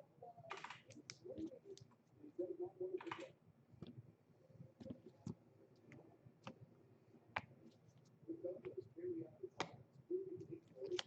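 Irregular light clicks and taps, like typing on a keyboard, with two short rustling swishes about half a second and three seconds in.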